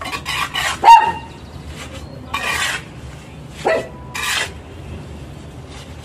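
Trowel scraping and scooping wet cement mortar against concrete in five or so separate rasping strokes, the loudest about a second in.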